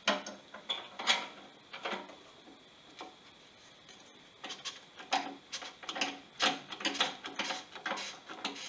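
Carbon fiber ferrule being twisted and pushed onto the sanded wooden end of a paddle shaft: a few sharp knocks at first, then from about halfway a run of uneven clicks and scraping creaks, several a second, as the tight-fitting sleeve works its way on. The fit is snug.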